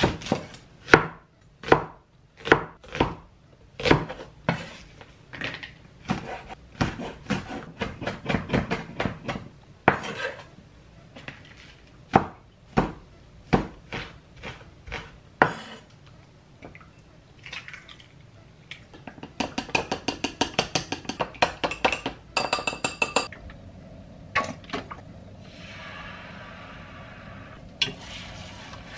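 A Chinese cleaver chopping onion and then thinly slicing scallions on a camphor-wood cutting board, in separate sharp strikes and quicker runs. About twenty seconds in comes a fast run of ringing clinks. Then a soft sizzle follows as egg cooks in a small square frying pan, with chopsticks tapping as it is stirred near the end.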